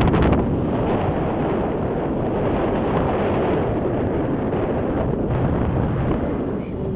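Wind buffeting the microphone as a steady, loud, low rumbling noise.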